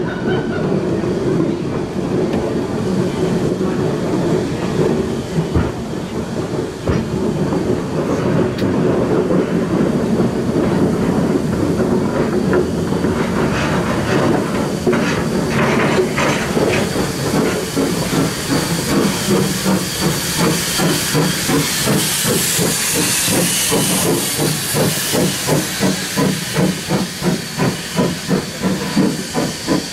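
A train rolling slowly along the track, its wheels and carriage rumbling. In the second half a high steam hiss from the steam locomotive C16 106 grows louder, and over the last several seconds the sound beats in an even rhythm of roughly two pulses a second.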